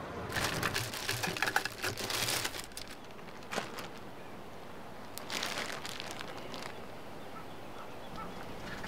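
Plastic bag crinkling and rustling as a hand rummages through a cardboard box, in two spells: a long one at the start and a shorter one past the middle.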